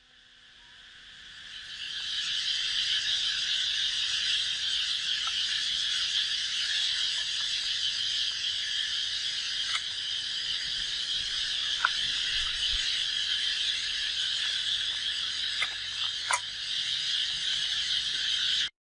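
Steady chorus of insects, dense and high-pitched, fading in over the first two seconds and cutting off abruptly near the end, with a few light clicks.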